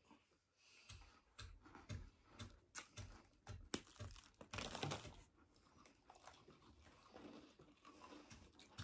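Faint crunching and crinkling of chocolate cream biscuits being broken and eaten: a run of small clicks and soft low bumps, thinning out after about five seconds.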